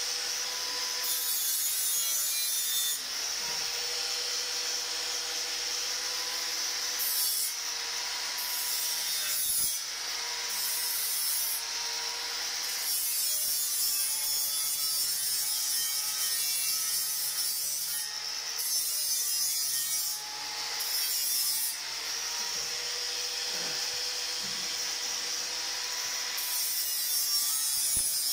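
Handheld angle grinder with a polishing wheel running against a stainless steel railing post: a steady motor whine under an abrasive rubbing hiss that grows and eases several times as the wheel is pressed on and lifted off the metal.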